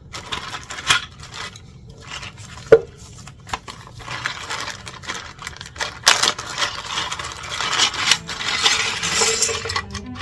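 Plastic LEGO bricks clattering and clicking against each other and the table as they are handled, with one sharp click about three seconds in and a dense run of clatter in the last few seconds.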